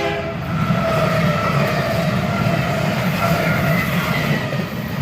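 A train passing at close range: a loud, steady rumble of wheels on rail with faint wavering high squeal tones over it. The tail of a train horn cuts off just after the start.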